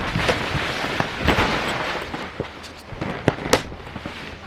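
A sudden burst of wind-driven heavy rain lashing the tent fabric: a dense hiss with many sharp cracks and pops, easing off after a second or two, with more sharp cracks near the end.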